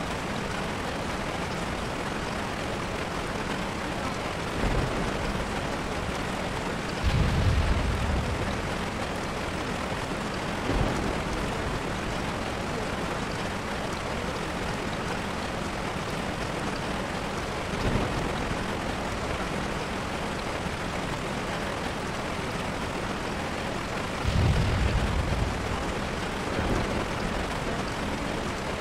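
A steady, even rushing noise with several brief low rumbles, the strongest about seven seconds in and again near the end.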